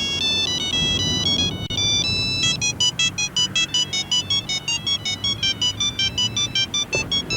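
Mobile phone ringtone: a high, beeping electronic melody. It starts with held notes, then from about two and a half seconds in turns into quick, choppy notes at about four a second.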